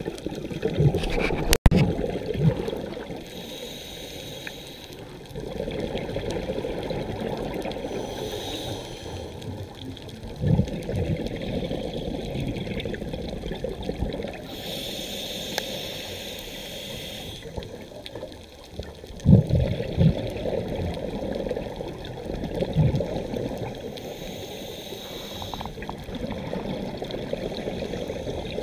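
Scuba diver breathing underwater: the hiss of each inhalation through the regulator alternates with gurgling rushes of exhaled bubbles, about four breaths in all. A single sharp click comes about one and a half seconds in.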